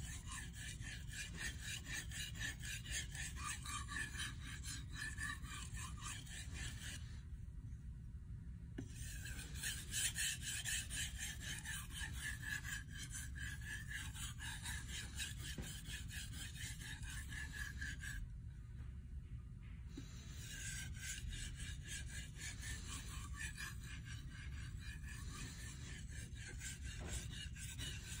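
Kitchen knife blade stroked rapidly back and forth on a whetstone, an even rhythmic scraping, while a factory edge is finish-sharpened. The strokes stop briefly twice, about a third and about two thirds of the way through.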